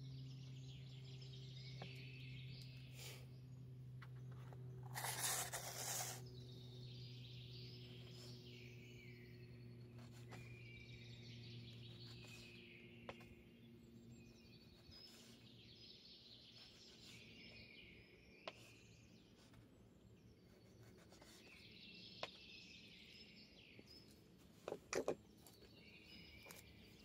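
Small birds chirping and singing in repeated short phrases, over a faint low steady hum that fades out partway through. A brief rustle comes about five seconds in, and a few sharp knife taps on a cutting board come near the end.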